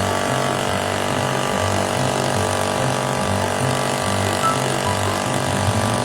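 A machine running loudly and steadily, a dense mechanical noise with a whine of many steady tones, over background music with a repeating bass line.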